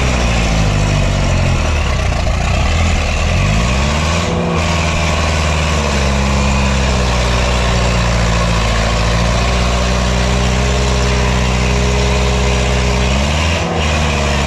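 HMT 6522 tractor's diesel engine running hard under heavy load, pulling a loaded trolley. The pitch shifts briefly about four seconds in and again near the end.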